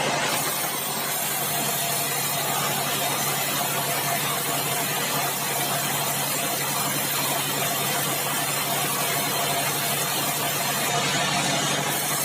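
Sawmill band saw running steadily with a low hum while cutting bengkirai hardwood; a high hiss sets in just after the start and falls away near the end.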